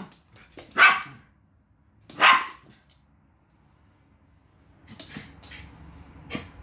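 West Highland white terriers barking: two loud barks, about a second and a half apart, in the first half. Then a few quieter short, sharp sounds near the end.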